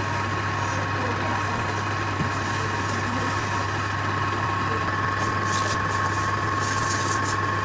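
A motor running steadily with a low hum and a constant high whine, with a few short high hissing sounds in the second half.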